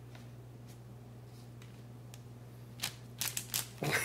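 Quiet room tone with a steady low hum, then, in the last second or so, a quick run of short crackles and taps as the paper pastry bags and pastries are handled on the table.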